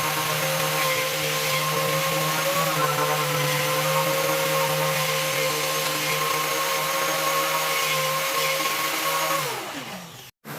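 Electric power tool motor running at steady speed, then switched off about nine seconds in, its pitch falling as it winds down to a stop.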